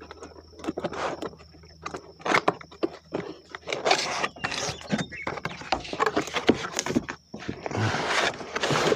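A cardboard box being opened and its contents pulled out: a run of clicks, knocks, rustling and scraping of cardboard and packaging.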